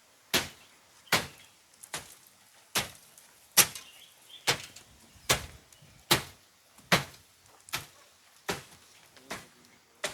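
Steady series of sharp knocks, a hard object struck about once every 0.8 seconds, a dozen strikes in a row at an even pace.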